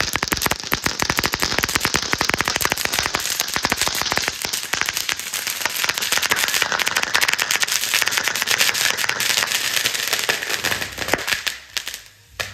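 A string of firecrackers (a ladi) going off: rapid, continuous bangs and crackling that thin out and stop about eleven seconds in, with a couple of last single pops.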